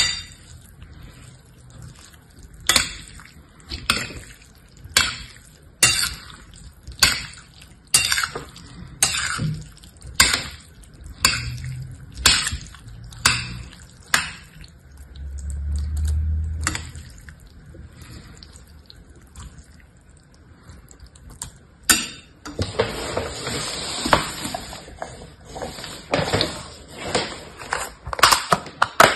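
Metal spoon stirring and scooping wet water beads in a ceramic bowl: a stroke about once a second, each with a clink of spoon on bowl and the wet rattle of the beads. Near the end a lidded plastic container is handled, with a rustle and clicks of plastic.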